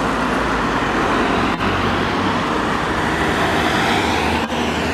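Road traffic passing close by: a steady rush of tyre and engine noise from cars and a van driving past, with a low engine hum underneath.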